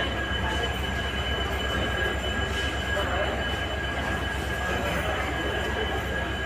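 Train standing at a station platform: a steady low rumble with a thin, high whine held throughout.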